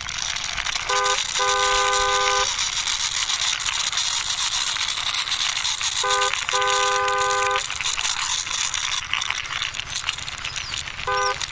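Two-note vehicle horn honking in a short-then-long pattern, repeated about every five seconds, over a steady hiss.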